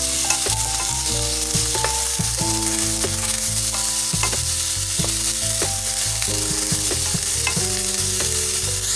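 Diced onion and green bell pepper sizzling in hot olive oil in a pan, stirred with a wooden spatula that scrapes and taps against the pan in scattered clicks.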